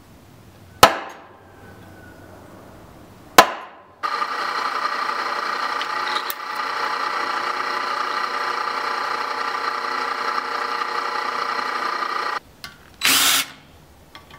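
Two sharp hammer blows on a center punch marking a mild steel strip, about a second and three and a half seconds in. Then a drill press runs steadily for about eight seconds, drilling the strip, and stops; near the end a cordless drill runs in one short burst.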